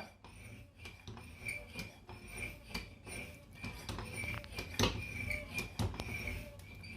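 Irregular light clicks and knocks of hands and tools working on a bicycle during an inner-tube repair, with one sharper knock about five seconds in.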